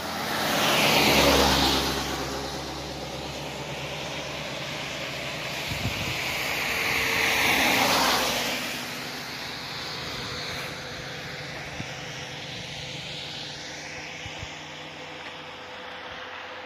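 Two cars passing close on a wet road, their tyres hissing through the water: one about a second in, another around eight seconds in.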